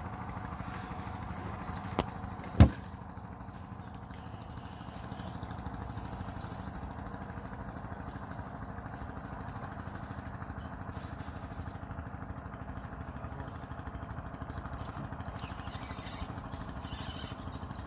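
A small engine running steadily at idle. A light click comes about two seconds in, then a sharp, loud knock half a second later.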